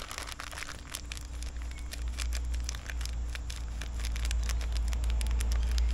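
Plastic bag of brown sugar crinkling and crackling as it is handled and squeezed to pour sugar out. A steady low rumble runs underneath and grows slightly louder.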